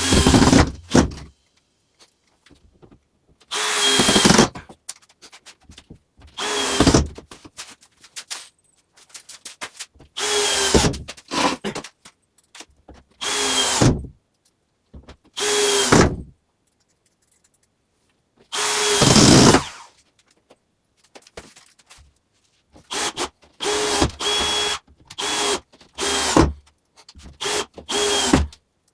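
Power drill driving screws into wood in repeated short runs, each a steady whine that rises as the motor spins up. Several longer runs come in the middle and a quick series of short ones near the end.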